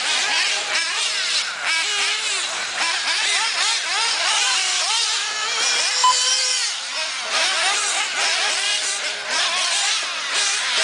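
Several 1/8-scale off-road RC buggy engines running, their high-pitched notes overlapping and rising and falling as they rev and back off around the track. A short beep sounds about six seconds in.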